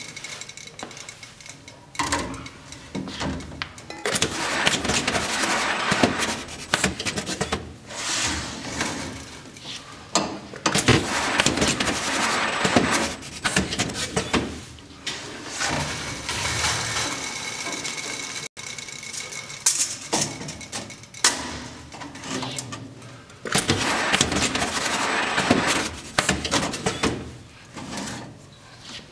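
Tape banding machine working through its banding cycles on stacks of heavy metal parts, in repeated noisy bursts of one to several seconds, with clicks and the clatter of the metal parts being handled on the steel table and rollers. A steady high whine sounds at the start and again about two-thirds of the way through.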